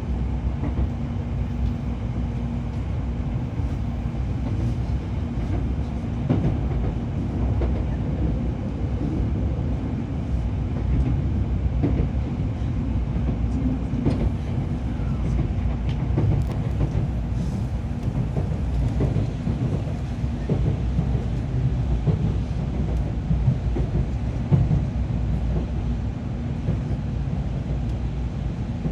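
Cabin running noise of a Tokaido Shinkansen 700 series carriage: a steady low rumble from wheels and running gear on the rails, with a few faint clicks.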